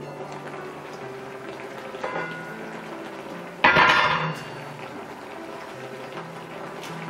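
Stainless steel saucepan lid handled on a pot: a light clink about two seconds in, then one loud metallic clank with a brief ring about three and a half seconds in. Soft background music underneath.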